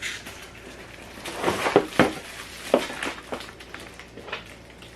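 A handful of short knocks and clinks from flat-pack chair parts and assembly hardware being handled, clustered about a second and a half to two seconds in, with a few more later.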